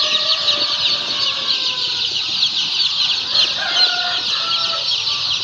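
A large flock of day-old Sonali chicks peeping continuously: a dense, steady chorus of many short, high-pitched peeps overlapping one another.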